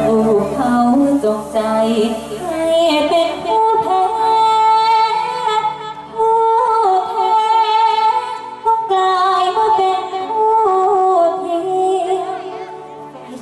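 A woman singing long, drawn-out wordless melodic lines over band accompaniment, with a gliding, wavering pitch. It is the melismatic opening of a likay song, before the lyrics begin.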